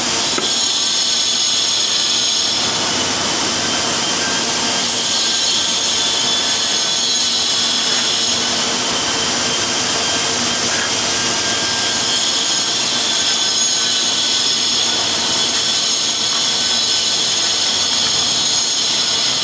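An electric power tool's motor running steadily with a high whine, the whine easing and returning a few times.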